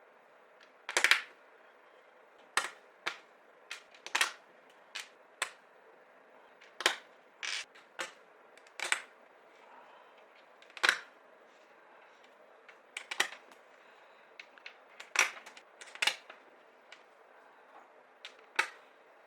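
Irregular sharp clicks and taps of hard 3D-printed plastic model parts being handled and fitted together, roughly one a second, some in quick pairs.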